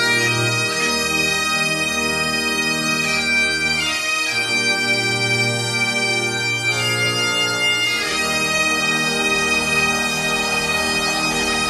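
Bagpipes playing a slow tune over their steady drone, the melody holding each note for a second or more before moving on with a quick ornament.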